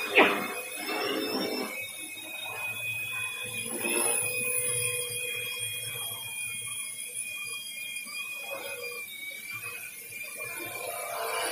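Quadcopter's four motors and propellers whining steadily in flight, a high, even tone that wavers only slightly as it holds position. There is a brief loud burst of noise just at the start.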